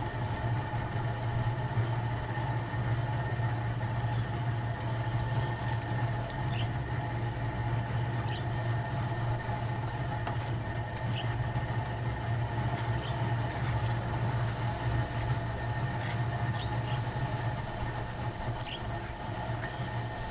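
A motor runs with a steady, even hum, with faint short high squeaks scattered through it.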